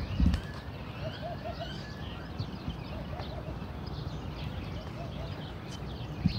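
Many small birds chirping and twittering in the trees, with a lower call repeated in short runs of about three notes a few times. Under them is a steady low rumble, with a bump just after the start.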